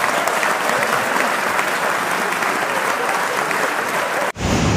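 A crowd applauding, a dense patter of many hands clapping. It cuts off abruptly near the end and gives way to a low rumble.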